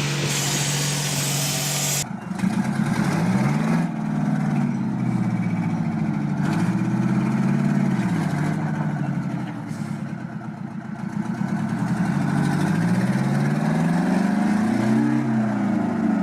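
A vehicle engine revving up and falling back several times, its pitch rising and dropping in repeated swells. In the first two seconds it is preceded by a different steady engine hum, which cuts off abruptly.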